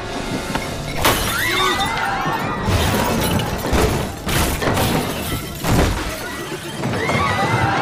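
Porcelain teacups and saucers smashing on a floor, a run of sharp crashes starting about a second in and going on for several seconds.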